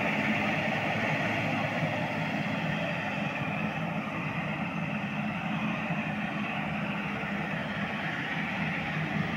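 Wheel loader's diesel engine running steadily under load as it grades a base course of sandy gravel, growing a little quieter over the first few seconds as the machine moves away.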